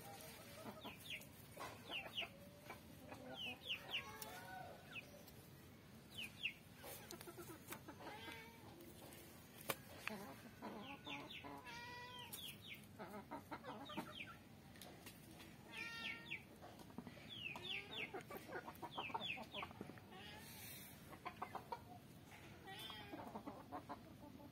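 Faint yard sounds of chickens clucking, with short high chirps repeating through it and an occasional sharp click, the loudest about ten seconds in.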